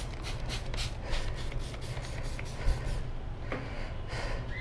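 Rubber-on-metal rubbing and scraping as a stiff new motorcycle tire's bead is forced over the rim edge by hand: a quick run of short strokes, about five a second, easing off after about three seconds.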